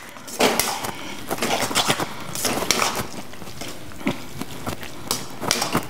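Metal spatula scraping and clinking against a steel kadai as thick mutton masala is stirred, in irregular strokes.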